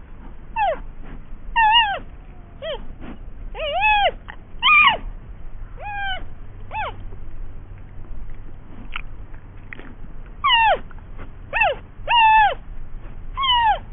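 An animal's short, high calls, each sliding down in pitch, repeated about a dozen times with a lull in the middle.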